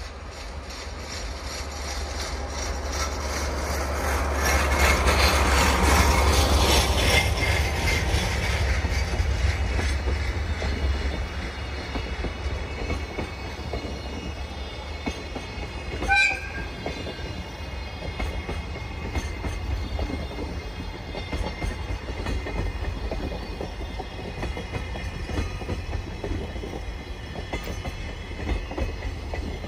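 A DE10 diesel-hydraulic locomotive's engine approaches and passes, loudest about five to seven seconds in. Container wagons then roll by with a steady clickety-clack of wheels over rail joints. A brief sharp squeal comes about halfway through.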